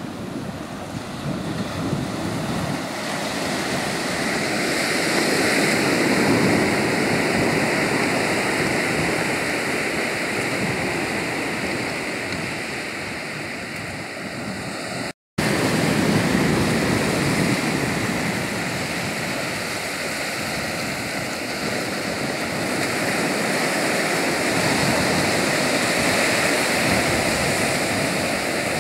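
Surf breaking and washing up a shallow sandy beach, a steady rush that swells and eases every several seconds as waves come in. The sound drops out for a split second about halfway through.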